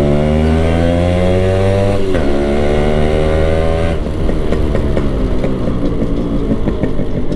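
Yamaha RX135's modified two-stroke single-cylinder engine pulling hard. The exhaust note climbs in pitch, dips sharply at an upshift about two seconds in, and climbs again. About four seconds in the rider goes off the throttle, and the note turns uneven and crackly.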